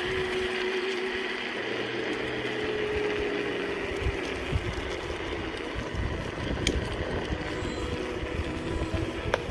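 Electric scooter riding along a road: a steady motor whine that steps up a little about two seconds in and then slowly falls, over wind noise on the microphone and rumble from the road.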